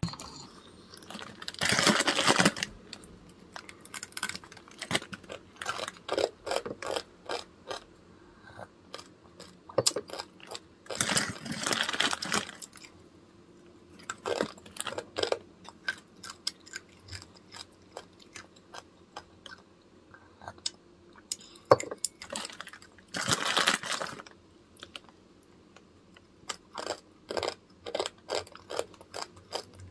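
Crunching on dry raw instant ramen noodles (Shin Ramyun, broken up in its packet), a stream of sharp irregular crunches. The plastic packet crinkles in three longer bursts, about 2 s in, around 11–12 s and around 23–24 s.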